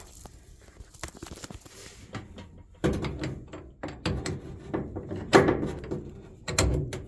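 Ratchet set being handled: metal tools clicking and knocking together, quiet at first, then a run of sharp clicks and knocks over the last few seconds.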